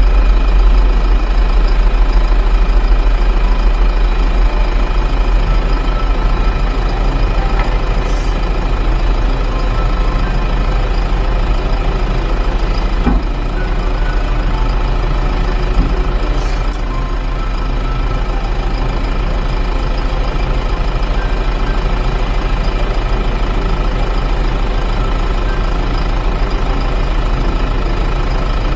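Heavy diesel engine running steadily and close by, with two short hisses, one about eight seconds in and another about halfway through.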